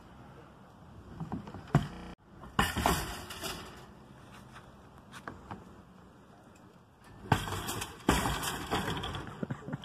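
Wire shopping cart rattling and banging against a plastic playground climbing wall as it is hauled up, in several bursts of clatter with sharp knocks.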